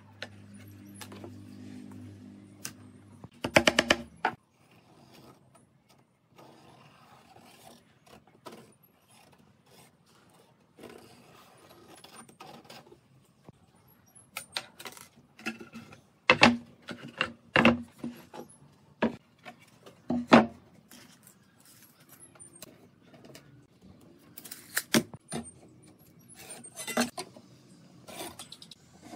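Hand tools and pine boards being handled on a wooden workbench: scattered knocks, clicks and light scrapes. A rattling clatter comes about four seconds in, and a run of sharp knocks comes in the middle and again near the end.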